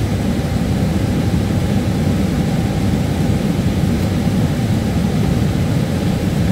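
Airbus A318 jet engines running at idle while the aircraft taxis, a steady low rumble as heard inside the cabin.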